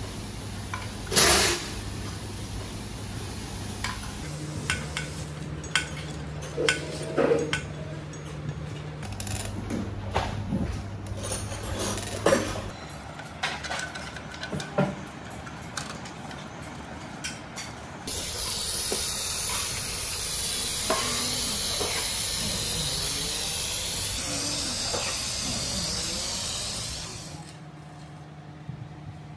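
Metal engine parts being handled on a workbench, with scattered clinks and knocks, then a steady spray hiss that runs for about nine seconds and stops shortly before the end.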